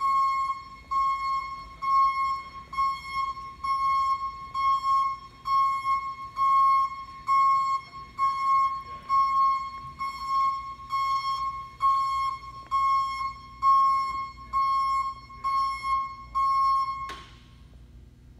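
Automated vehicle's warning beeper sounding a steady, evenly repeated single-pitch beep, a little faster than once a second, while the vehicle travels. The beeping stops abruptly near the end with a click.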